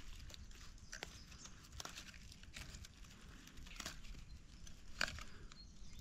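Faint, scattered snaps and rustles of leafy wild pak wan shoots being picked and handled by hand, a few sharp clicks a second or so apart.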